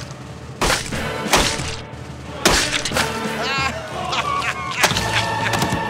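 Horror-film gore sound effects: several heavy, sudden hits with breaking, crunching sounds, over background music with sustained tones, and a warbling wail a little past the middle.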